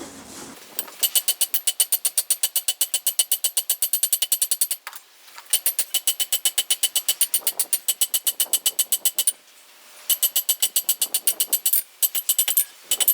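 Hammer blows on hot mild steel over an anvil, forging the bar down: three runs of rapid, evenly spaced ringing strikes, about seven a second, separated by short pauses, with a few looser blows near the end.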